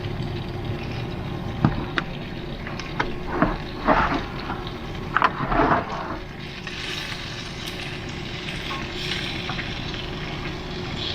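Diced chicken sizzling in a hot skillet. There are a few short clicks and rattles in the first half, and the frying hiss comes up more strongly after that, all over a steady low hum.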